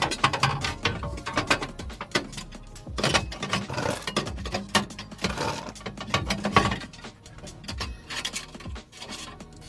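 Quick, irregular metallic clicking and clinking as a band clamp on a steel exhaust pipe joint is fitted and tightened.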